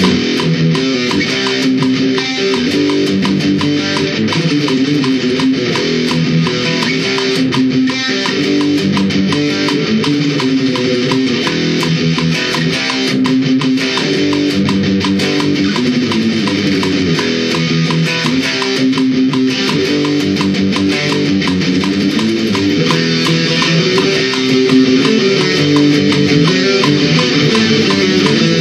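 Electric guitar through an amplifier playing a metal riff with rapid, even picking, the notes moving in a repeating pattern.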